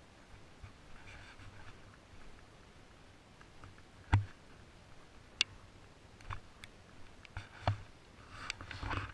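Quiet scattered clicks and knocks with brief scratchy rustles, handling noise from a helmet-mounted camera as the rider moves, with no engine running. A sharp knock about four seconds in is the loudest.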